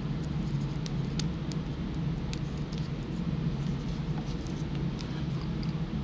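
Faint scattered clicks and light rustle of a watch strap being threaded through its metal pin buckle and keeper, over a steady low hum.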